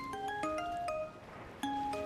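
Light background music: a soft melody of short, bright notes in a mallet-percussion or glockenspiel-like tone, several notes a second.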